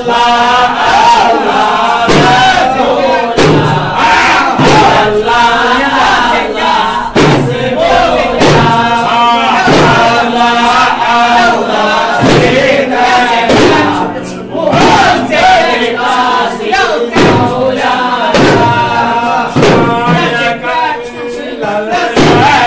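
Group of men chanting loudly together, with hand-held frame drums (daff) struck in a steady beat.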